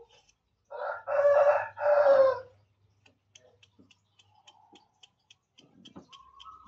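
A rooster crows once, loudly, about a second in. After it come light, quick ticks, about four a second, from a knife shaving a cucumber.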